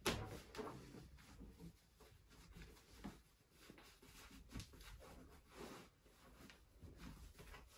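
Soft, irregular rustling and scraping of a canvas plash-palatka rain cape being rolled up by hand, with a few faint knocks of handling.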